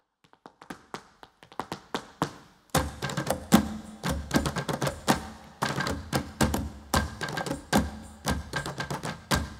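Flamenco stage percussion: sharp wooden taps and knocks, sparse and quickening at first. About three seconds in, a low steady drone of music sets in under a denser, uneven rhythm of knocks.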